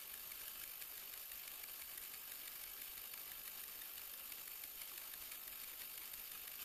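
Faint steady hiss with light rustling of dry esparto grass strands as they are plaited by hand.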